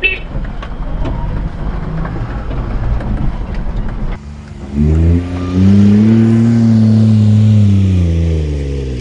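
Daihatsu Hijet mini-truck's 660cc three-cylinder engine driving over sand, first heard as rough engine and road noise inside the cab. About four seconds in the sound changes abruptly to the engine heard from outside, its revs climbing and then slowly falling away.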